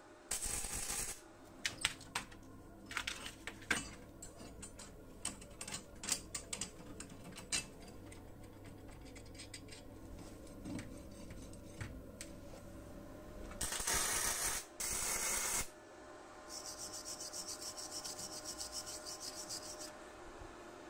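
Workshop metalworking sounds: a short burst of MIG tack welding, then metal parts and tools clicking and knocking on a steel bench. Two louder hissing bursts come about two-thirds through, and a fast, even scraping near the end.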